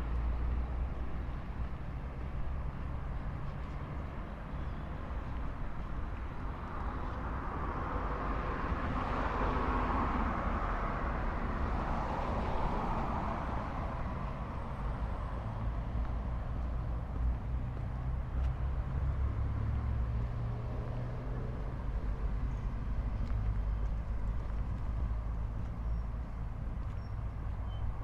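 City street traffic: a car passes, its noise swelling and then fading about ten seconds in, over a steady low rumble of traffic.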